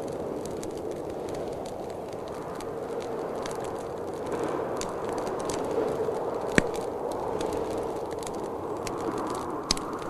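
Wood fire crackling and popping over a steady rush of wind that swells and eases, with a sharp pop about two-thirds of the way through and another near the end.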